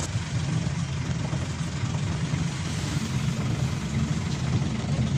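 Bus engine running with road noise, heard from inside the passenger cabin: a steady low rumble with a hiss over it.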